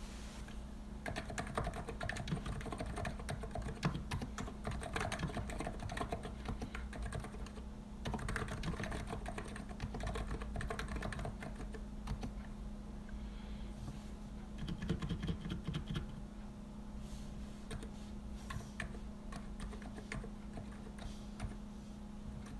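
COX Empress electrostatic capacitive keyboard with 50 g switches being typed on continuously: a dense, unbroken stream of keystrokes, with a steady low hum underneath.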